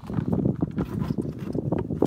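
Hard plastic battery box and its divider knocking and scraping as a battery is pushed down into it: a run of quick, irregular knocks and rubbing.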